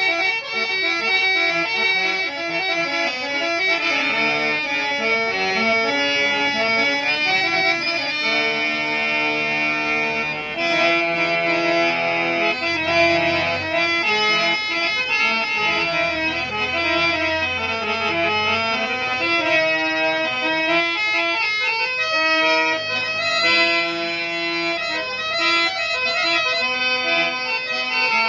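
Indian harmonium played with both hands: a continuous reedy melody over sustained notes, with deeper bass notes coming in for a few seconds in the middle.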